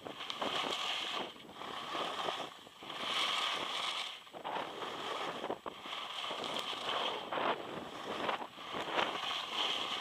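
Skis carving turns on groomed snow: a scraping hiss that swells and fades with each turn, roughly every one and a half seconds, with wind across the microphone.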